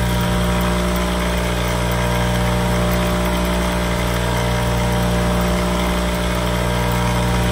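Electric bench buffer running with a steady hum, its buffing wheel spinning as it polishes a polymer pistol frame.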